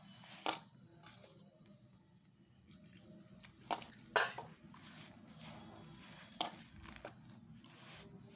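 Hands kneading flour and water into a stiff dough in a steel bowl, with sharp metallic clinks against the bowl: one about half a second in, three close together around the middle, and two more later.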